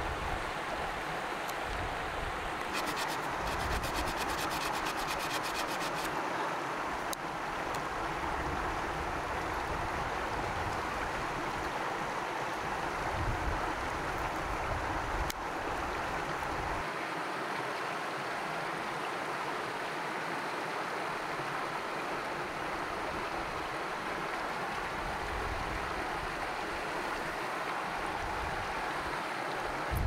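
A creek's steady rush of flowing water, with a knife scraping and shaving the bark of a green willow stick close by.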